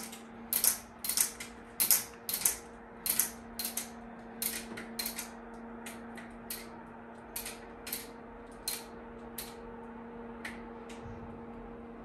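Solar-powered roller shutter with tiltable slats lowering on its motor: a steady hum under a run of sharp clicks from the slats as they unroll. The clicks come about two a second at first, then grow sparser and fainter.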